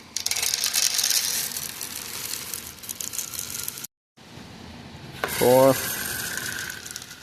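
Shelled corn kernels rattling and pouring, a dense irregular crackle lasting about four seconds, as a grain sample goes into a moisture tester's hopper. It stops abruptly, then a steadier background hum with a faint steady whine follows, and a man says "four."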